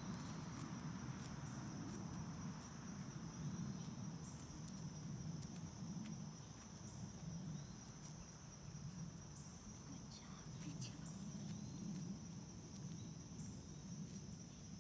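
Steady, high-pitched chorus of insects, one even drone throughout, over a low, uneven background noise.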